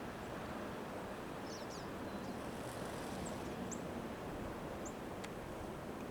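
Outdoor ambience: a steady background hiss with a few faint, short, high chirps scattered through it and a faint click near the end.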